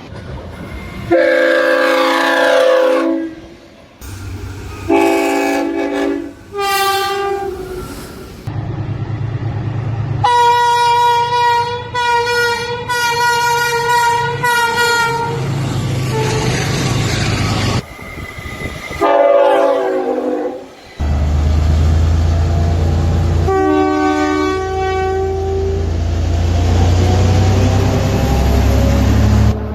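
A run of short clips of locomotive air horns sounding as trains go by. There are several short blasts, a long blast of about five seconds starting about ten seconds in, and near the end a low rumble from a passing train under one more horn blast.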